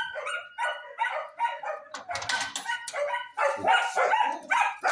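Several dogs barking, short barks coming quickly one after another and overlapping.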